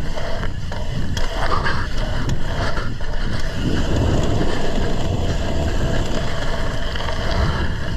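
Wind buffeting a microphone as a BMX bike is ridden fast on a dirt track, a loud steady low rumble with scattered clicks and rattles.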